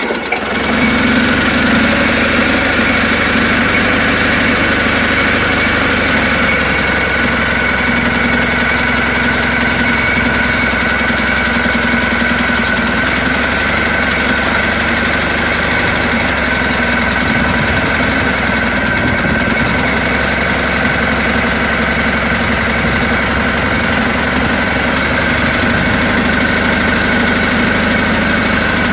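Ariens garden tractor engine catching right at the start, then running steadily at idle, with a steady high whine over the engine note.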